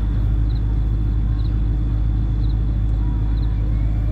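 Steady low rumble of wind buffeting a phone microphone outdoors, with faint high double chirps repeating about once a second.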